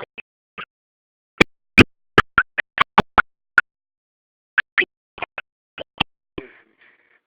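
Two quick runs of sharp knocks, roughly four or five a second, with a pause of about a second between them.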